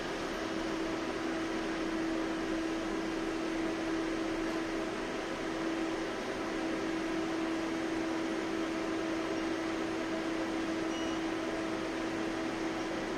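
Steady electrical hum inside a standing 71-619 tram car: one low, even tone over a constant noise from the car's running equipment.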